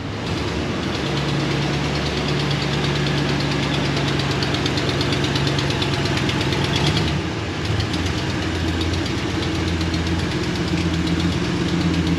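Dodge Ram 1500's 5.7 L Hemi V8 running at low speed, with a rapid ticking from leaking exhaust manifolds. The engine note changes about seven seconds in.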